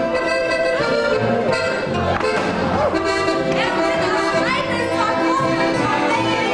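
Live Alpine folk band playing a lively dance tune, with a plucked double bass stepping through its notes under the melody.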